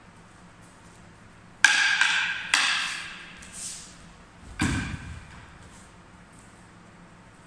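Wooden Kali sticks clack together twice, sharp and briefly ringing, a little under a second apart, followed by a lighter knock. About two seconds later comes a heavy thud, a body landing on the floor mat.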